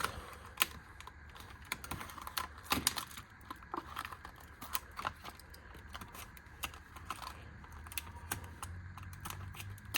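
Tools and packaging being handled: irregular light clicks and taps, several a second.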